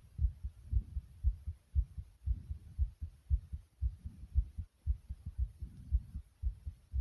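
A person's racing heartbeat: low, muffled thuds in a steady rhythm of about two beats a second.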